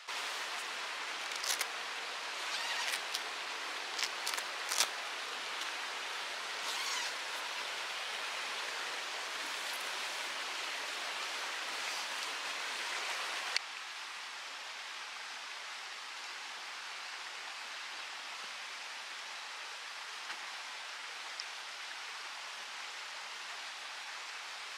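Steady rushing outdoor noise, with a few sharp clicks and taps in the first five seconds. It steps down slightly in level at a cut a little past halfway.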